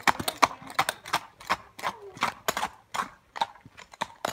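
A horse's hooves clip-clopping on a tarmac road: a steady run of sharp hoofbeats, roughly three a second.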